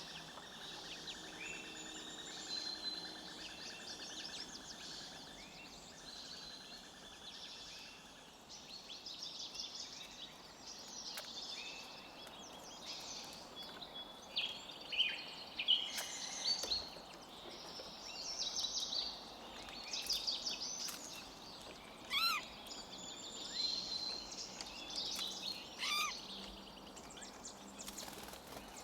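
Forest ambience: several songbirds chirping and trilling in short, overlapping calls over a steady background hiss, busier in the second half.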